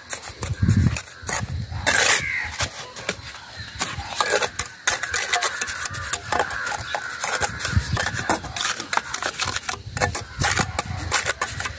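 Steel mason's trowel scraping, smearing and tapping cement mortar onto the end of a concrete block, giving many short irregular clicks and scrapes.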